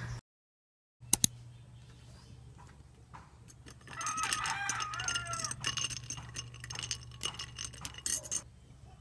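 Two sharp clicks about a second in, then from about four seconds in a metal spoon stirring iced coffee in a glass: ice cubes clinking and rattling against the glass for about four seconds. A chicken calls in the background during the stirring.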